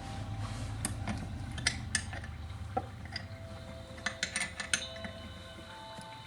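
Small chainsaw parts and hand tools clicking and clinking as the saw's oil hose and fittings are worked on by hand: scattered light ticks, bunched in a quick run about four to five seconds in, over a steady low hum.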